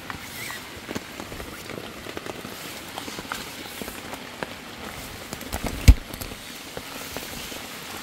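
Rain pattering on a wet tent, with scattered drops ticking and one loud thump about six seconds in.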